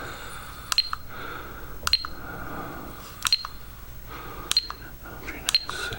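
A handheld LiPo cell checker gives a short click-beep each time its button is pressed, stepping through the pack's cell voltages. The beeps come about every second and a quarter, with two quick ones near the end.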